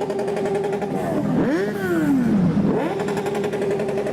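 Motorcycle engines running on a group ride: a steady cruising engine tone, with an engine revving up and back down about a second and a half in before the steady tone returns.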